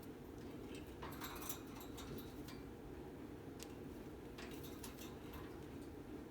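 Faint scattered light clicks and taps, a few in quick clusters, over a steady low hum.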